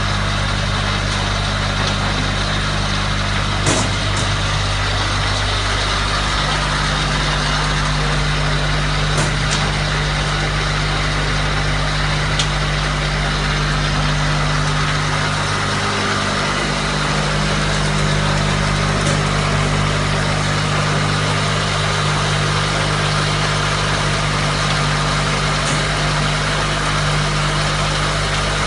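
Oil palm fruit thresher machine running steadily, with a constant motor drone, a rushing mechanical noise and a few sharp knocks.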